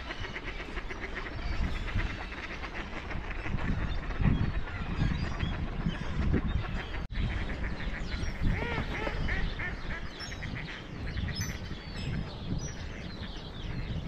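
A large flock of ducks and geese on open water, many birds quacking and honking at once in a steady chorus of overlapping short calls. The sound drops out for an instant about seven seconds in.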